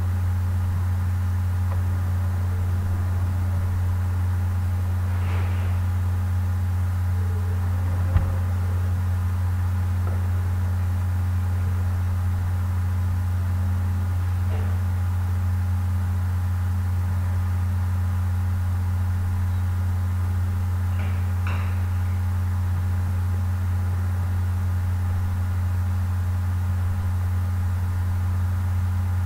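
Steady low hum with fainter, higher steady tones over it, and one short click about eight seconds in.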